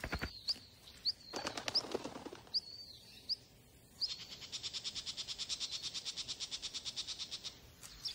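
Small songbird chirping: short, high, rising chirps about every half second. From about four seconds in, a rapid high trill of about ten even pulses a second runs for some three and a half seconds, then stops.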